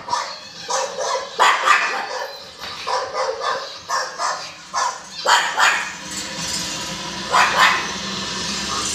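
Pug barking over and over in short, sharp barks, a quick run of them, a brief lull, then two more barks near the end.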